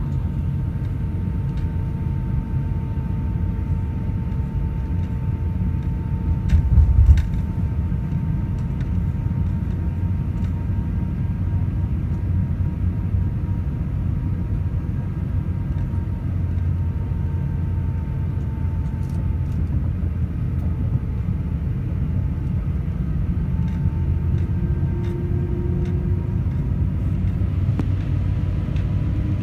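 Jet airliner taxiing, heard from inside the cabin: a steady low rumble with a faint steady whine above it, and one brief low thump about seven seconds in.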